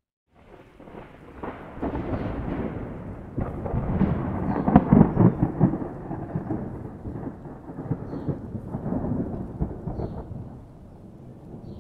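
Rolling thunder: a crackling rumble that starts suddenly after a brief silence, grows to its loudest about halfway through, swells again, then dies away.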